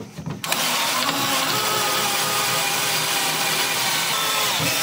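20V cordless drill boring through the steel side wall of a tractor loader bucket with a larger twist bit, enlarging a pilot hole. It starts about half a second in and runs steadily, the motor and the bit cutting metal, then stops just before the end.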